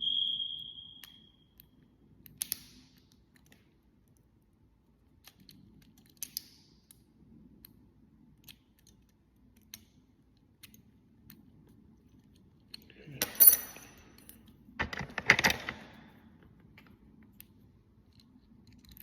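Small metal clicks and clinks from a door lock cylinder being worked on during a rekey, beginning with a brief metallic ring. Two louder clatters come about two-thirds of the way through.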